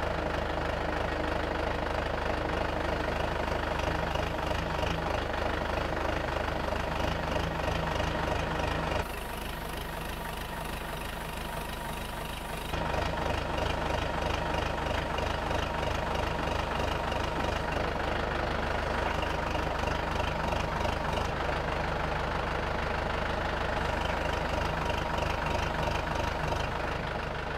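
Loader engine running steadily under load as the bucket slowly lifts a small pickup truck by a chain. The engine sound drops and changes for a few seconds in the middle, then returns.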